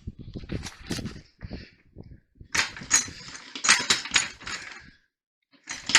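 Irregular metallic clicks, clanks and clattering of hand tools and parts handled on a car strut and coil spring, busiest in the middle, with one sharp knock near the end.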